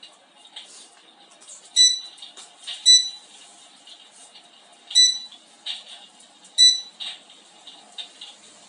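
Electric fireplace's electronic control beeping four times, short high beeps at irregular intervals as its settings are changed, over a soft, irregular crackle from its built-in fire sound effect.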